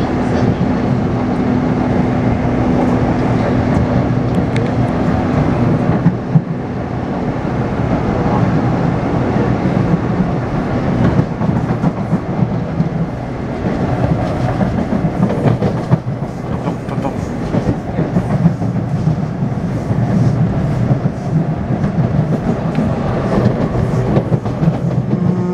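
Taipei Metro C301-type train with retrofitted propulsion equipment running along the line: steady rumble of wheels and traction gear, with a steady low tone from the drive that is clearest in the first few seconds. The drive's inverter is known to make an abnormal noise.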